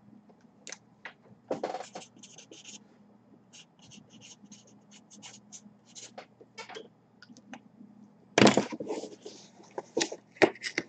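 Marker pen writing on a cardboard box in quick short strokes, followed by a louder burst of handling noise about eight seconds in as the box is moved.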